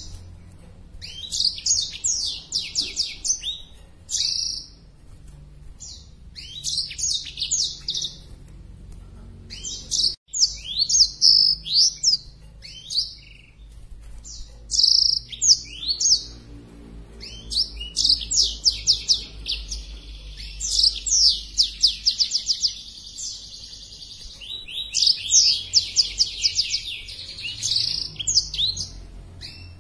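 Black-throated canary singing in bursts of fast, high trills and quick sweeping notes broken by short pauses. Twice it runs into a long unbroken trill, about halfway through and again near the end. The bird is in breeding condition and singing hard.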